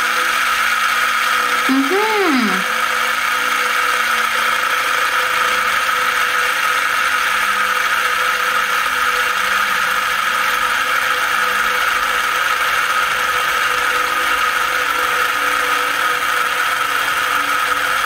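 A loud, steady hum throughout, with one short tone that rises and falls about two seconds in.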